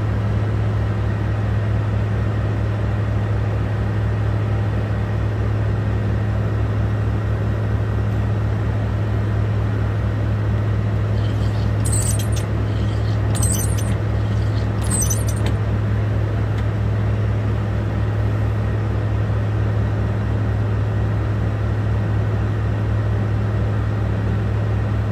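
Semi-truck diesel engine idling steadily, heard from inside the cab. Around the middle, three short high-pitched chirps come about a second and a half apart.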